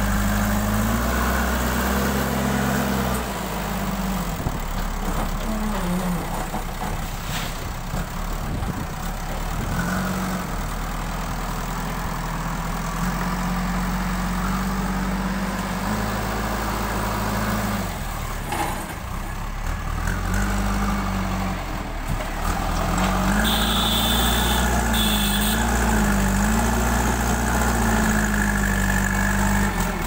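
JCB backhoe loader's diesel engine running, its pitch rising and falling again and again as the machine works its front loader bucket and manoeuvres.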